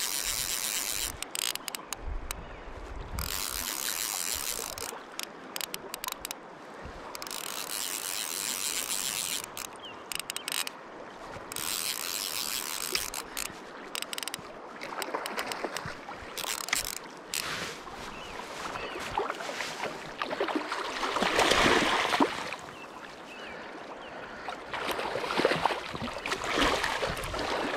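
Fly reel's click-and-pawl drag ratcheting in several spells of a few seconds each as a hooked trout is played and line is reeled in. In the second half, water splashes several times as the fish is drawn in.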